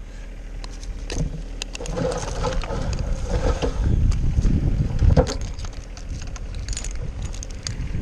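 Wind buffeting the microphone, with scattered sharp clicks and rustling throughout.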